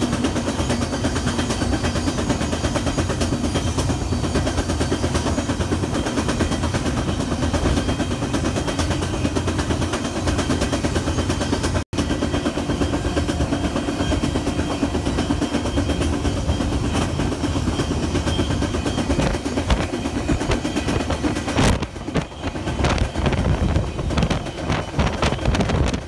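Moving freight train heard from an open car it is carrying: a steady loud rumble and clatter of steel wheels and rattling car metal. The sound cuts out for an instant about halfway through and grows more uneven near the end.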